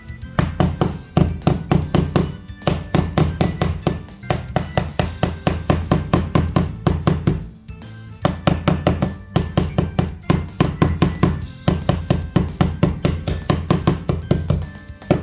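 Background music with a fast, steady beat and a prominent bass line.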